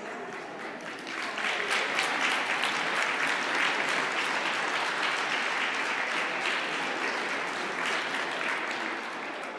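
Audience applauding: many hands clapping, swelling about a second in and easing off near the end.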